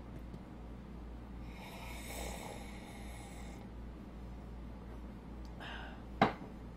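Faint room tone with a steady low hum, a soft breath near the microphone a couple of seconds in, and a short sharp click near the end, the loudest sound.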